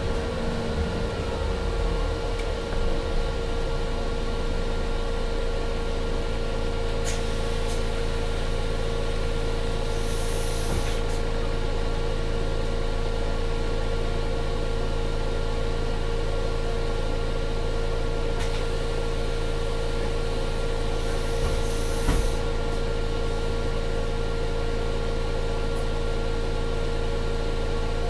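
MAN Lion's City 12C Efficient Hybrid city bus, heard from inside, with a steady drone and hum of its drive and auxiliary systems that holds unchanged. A falling whine fades out in the first few seconds, and two short hisses of air come about ten and twenty-two seconds in.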